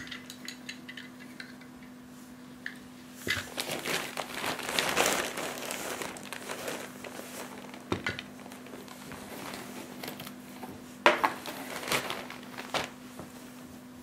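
Plastic packaging crinkling as it is handled for a few seconds, then several sharp knocks and clinks of hard parts being set down.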